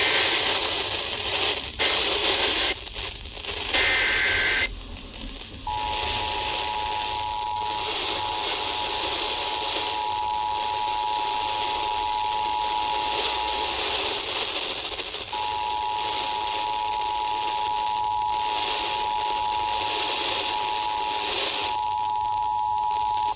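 Emergency Alert System tones over radio static. Three short buzzy data bursts of the SAME header come first. Then the two-tone EAS attention signal sounds steadily for about eight seconds, stops briefly, and sounds again for about eight seconds, announcing an incoming severe thunderstorm warning.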